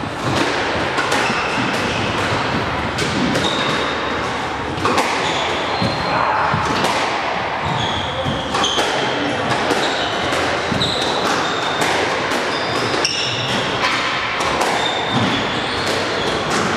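Court shoes squeaking and feet thudding on a wooden squash court floor as a player moves side to side through a footwork drill, with many short high squeaks among the footfalls, echoing in the court.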